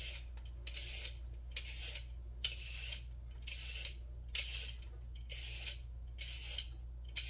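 Vegetable peeler scraping down a raw carrot in quick repeated strokes, about two a second, each a short rasp, over a steady low hum.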